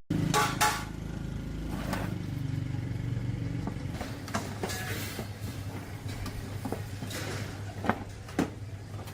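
Old 220 V electric motor running with a steady low hum, with scattered clicks and knocks over it.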